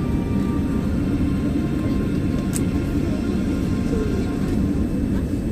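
Steady low rumble of an airliner cabin on the ground before takeoff, heard from inside the cabin. Faint lingering music tones fade out about a second in.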